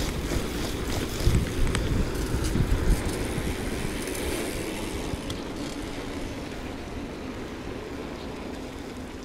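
Wind rushing over the microphone of a bicycle-mounted camera, with a low rumble from the tyres rolling on asphalt during a fast ride. A couple of faint clicks come in the first few seconds, and the rush eases off toward the end.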